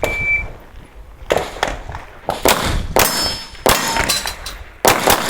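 A shot timer beeps briefly, then about a second later a string of pistol shots follows in quick groups. Some shots ring off steel targets.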